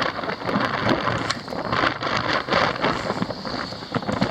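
Strong wind buffeting the microphone, a rough rushing noise that starts abruptly just before and eases off right after.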